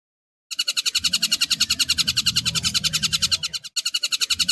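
Stork-billed kingfisher (tengkek buto) calling in a fast, even chatter of repeated notes, about eight a second. It starts about half a second in and breaks off briefly near the end before carrying on.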